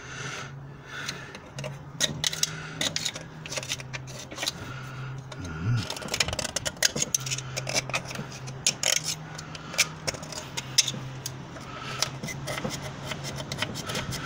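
Screwdriver tip scraping and clicking against the valves and combustion chambers of a Morris Minor cylinder head, in a quick irregular run of small metal ticks and scrapes. A low hum comes and goes underneath.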